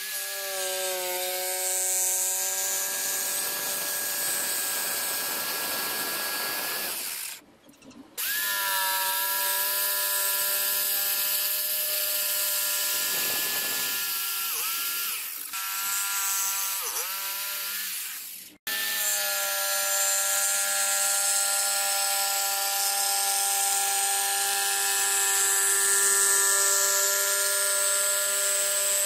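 Electric saw cutting the outline of a wooden chair leg from a board, its motor whining steadily. It stops and restarts twice, and twice its pitch dips briefly as the blade is loaded in the cut.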